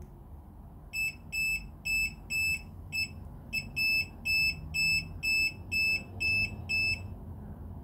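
YATO YT-28313 inductive voltage tester beeping in short, high-pitched beeps, about two a second, from about a second in until about seven seconds in. The beeping signals that the tester senses live voltage from a cable hidden in the wall.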